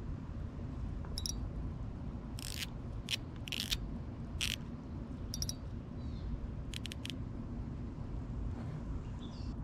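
Spinning reel being cranked to take in line: a handful of short, sharp mechanical clicks and scrapes between about one and seven seconds in, over a steady low rumble.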